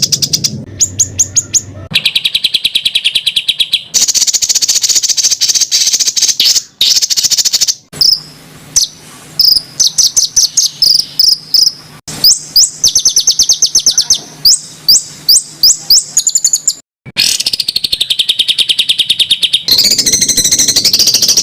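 Songbird calls spliced one after another: fast series of sharp, high repeated notes, the harsh 'shots' used to train competition birds. The pattern changes abruptly every second or few, with hard cuts between clips.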